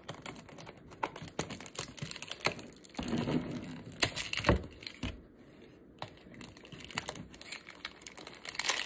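Packaging of a small perfume box being handled and unwrapped by hand: light crinkling and rustling with a string of small clicks and taps.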